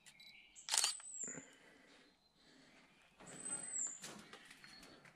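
Footsteps and rustling through undergrowth, with a sharp scuff just under a second in and a longer spell of shuffling and rustling from about three seconds. A bird gives a few short high chirps.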